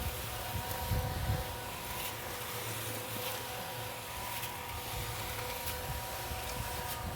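Concrete mixer running steadily: a motor hum with a low rumble from the turning drum, and a few light knocks.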